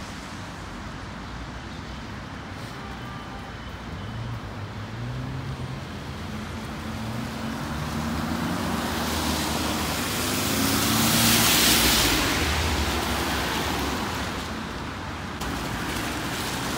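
Car traffic on a wet road: a vehicle approaches and passes close by, its engine hum building and its tyres hissing on the wet asphalt, loudest about eleven seconds in, then fading.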